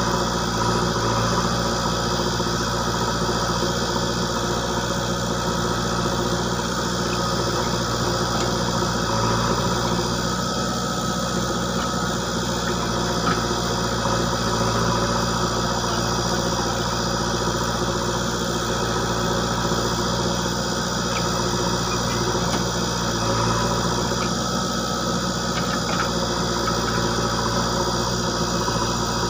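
Diesel engine of a JCB 3DX backhoe loader running steadily at idle, with a few faint clicks.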